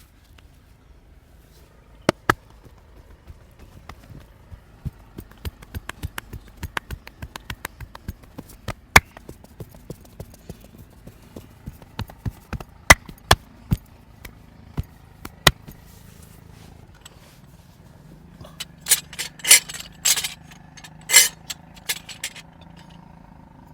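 A barber's hands at work in a head massage: scattered sharp clicks and snaps, several a second at their busiest, then a few louder, harder slapping strokes near the end.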